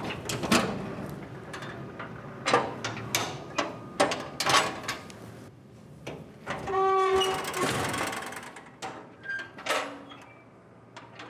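Wooden window shutters being opened: a run of knocks and clicks, then a hinge creaks about seven seconds in, and a couple of latch clicks follow.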